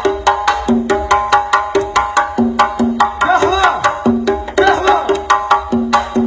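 Music with a fast percussive beat, about three strikes a second under a repeating melody, played loud through a sound system.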